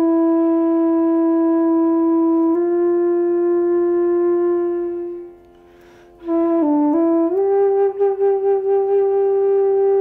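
Long wooden transverse flute playing slow held low notes: one note sustained for about five seconds that fades into a short pause with a breath, then a brief dip and a slightly higher note held with a pulsing vibrato.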